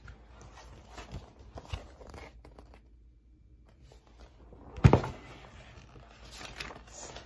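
Paper pages of a picture book being turned, rustling and crinkling, with a single sharp thump about five seconds in.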